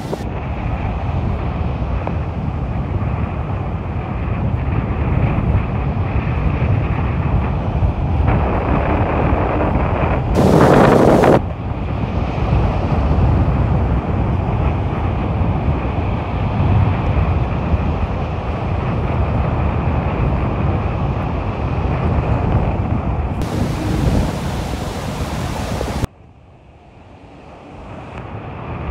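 Ocean surf breaking and foam washing up a sandy beach, a steady rushing roar, with wind buffeting the phone's microphone. A short louder blast comes about ten seconds in, and near the end the sound drops off sharply, then builds back up.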